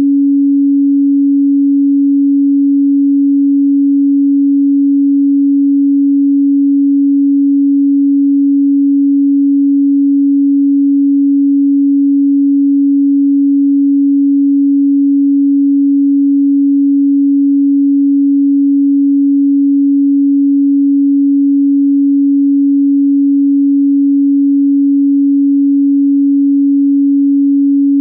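A pure 280 Hz sine tone, held at one steady pitch and level without a break.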